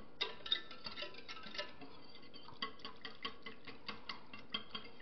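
Metal utensil stirring in a small stainless steel saucepan, clinking against the sides and bottom: quick, irregular light clinks, several a second, each with a short ring, as yeast is stirred into warm liquid.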